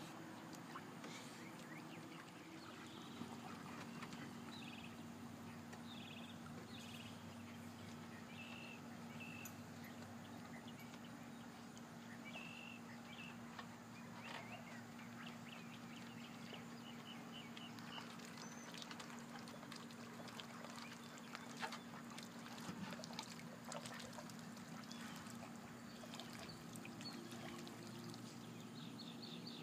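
A duck calling faintly in short runs of quick calls, heard several times, over a steady low hum.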